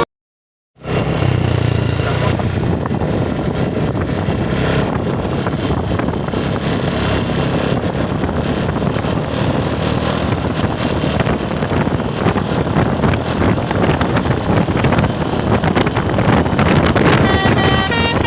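Roadside traffic: vehicle engines and tyre noise going by, after a short silent gap at the start. Near the end a string of held, pitched tones begins over the traffic.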